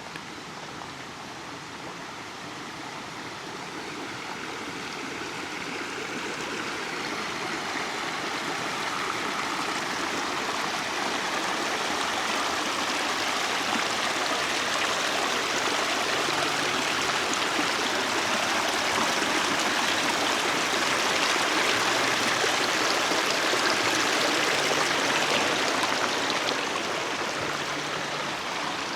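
Creek water rushing over rocks, growing steadily louder for about twenty seconds, then easing off a little near the end.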